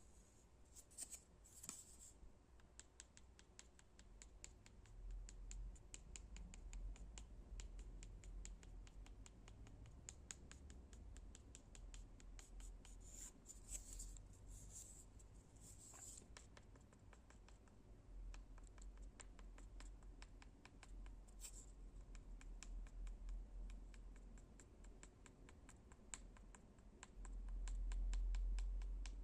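Fast, light tapping on wood, a rapid run of small clicks, with a few brief scratching strokes. A low rumble swells near the end.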